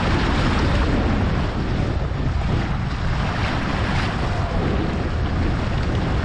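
Heavy wind buffeting on the microphone over water rushing and splashing along a board moving across the sea.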